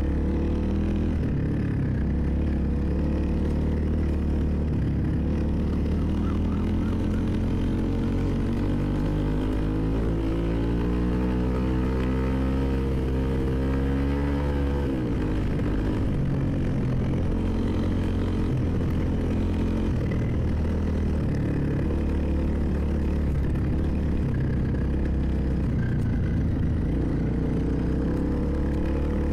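Motorcycle engine running under way, its pitch rising steadily for several seconds as it accelerates, then dropping abruptly about halfway through before it settles back to a steady run.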